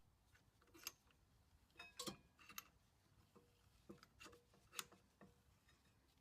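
Faint, irregular metallic clicks and ticks, about eight in all, some with a short metallic ring, from a piston wind-back tool turning the rear brake caliper piston back into its bore.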